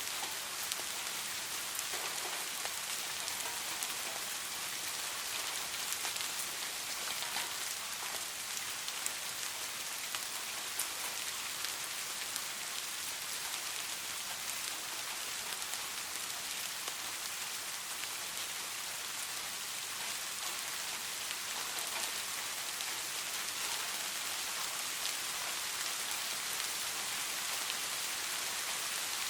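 Steady rain: an even hiss with many small raindrop ticks.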